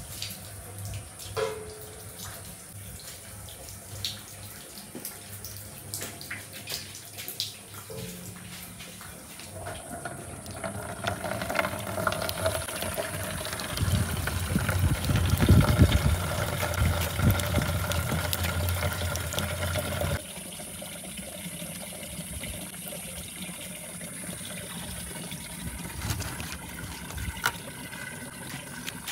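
Water running or pouring, with scattered clicks and knocks. It grows louder for about ten seconds in the middle, then drops off suddenly.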